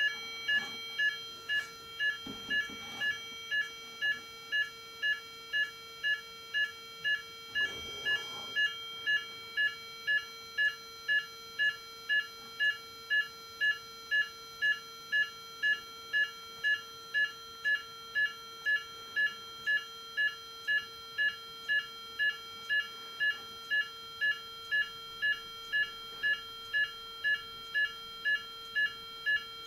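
Cerberus Guinard SIR-24-FC electronic fire-alarm sounder sounding the French AFNOR NF S 32-001 evacuation tone, a two-tone alarm that repeats about three times every two seconds. It is powered from a 9-volt battery for the test.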